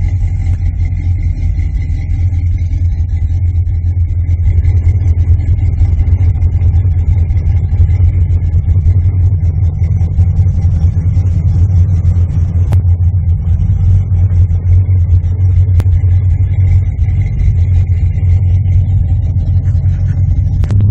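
A 1980 Chevrolet Corvette's V8 engine running with a steady low rumble.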